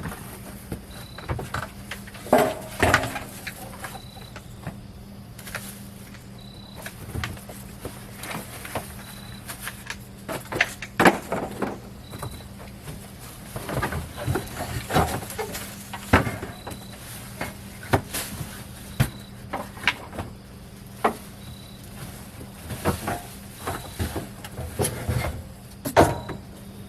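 Irregular knocks, clunks and rustles of grill parts and packaging being handled and moved while unpacking, with a faint short high chirp repeating about every second and a half behind them.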